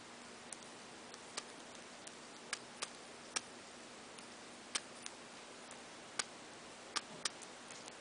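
Budgerigar eating seed from a paper cup: sharp, irregular beak clicks, about ten in eight seconds, as it cracks seeds and pecks inside the cup.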